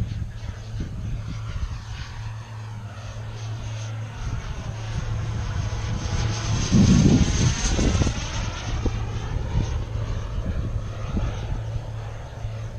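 Turbine engine of an Elite Aerosports Havoc radio-controlled sport jet flying past overhead, its whine and rush growing to a peak about seven seconds in and then fading.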